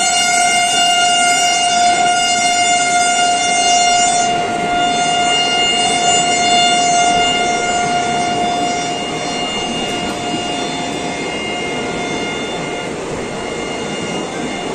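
Express train coaches rushing past at moderate speed with a steady noise of wheels on rail. Over it runs a long, steady high tone that slowly fades away about thirteen seconds in.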